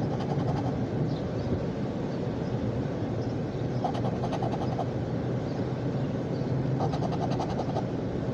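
A coin scratching the latex coating off a scratch-off lottery ticket in three short bursts of quick strokes, near the start, about four seconds in and about seven seconds in, over a steady low rumble.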